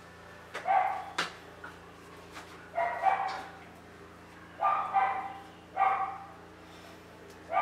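A dog barking repeatedly, short barks every second or two.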